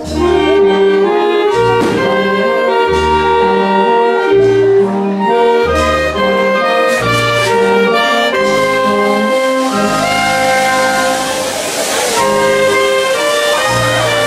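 A wind band of clarinets, trumpets, alto saxophone and baritone horn playing a tune in held chords, over a low bass note that sounds about every one and a half seconds.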